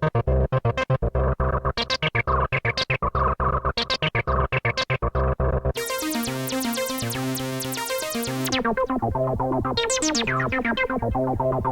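Roland JU-06A synthesizer playing a fast repeating sequence of short staccato notes. About halfway through it switches abruptly to a brighter, fuller sustained patch. The very bright top fades away a few seconds later while the notes and a bass line run on.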